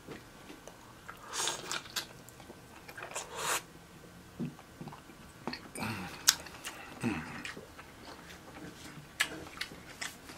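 Close-miked mouth sounds of a person eating buttered seafood: wet biting and chewing with smacking and clicks, coming in short bursts several times.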